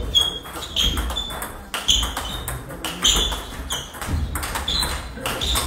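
Table tennis rally: a celluloid-type ball clicking off the paddles and the table top in a quick, even run of sharp hits, a little under two a second.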